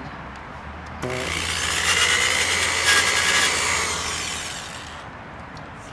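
Corded electric drill run below full speed with a 400-grit sanding disc pressed against a clear-coated alloy car wheel: a steady motor hum under a rasping scrape, which starts about a second in and fades toward the end. The sanding is taking off the clear coat and tarnish, the first stage of the wheel restoration.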